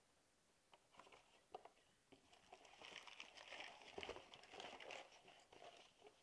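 Faint rustling and crinkling of paper being handled, with a few soft knocks. It starts about a second in and is busiest in the middle.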